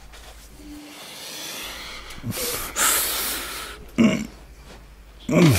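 A man breathing heavily as he stirs awake in bed: loud, noisy breaths through the middle, then two short grunts with falling pitch near the end.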